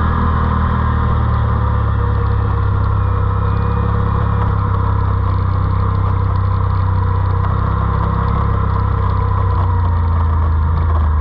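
ATV engine running at a steady speed, a constant low drone with no change in pitch.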